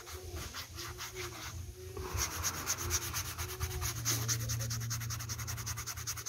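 Sandpaper rubbed in quick back-and-forth strokes over a leather knife sheath, scuffing the leather; the strokes get louder and faster about two seconds in.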